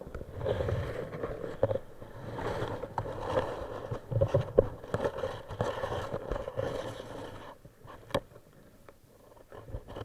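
Muffled scraping and knocking through an underwater camera housing, irregular and uneven, then dying down, with one sharp click a little past eight seconds in.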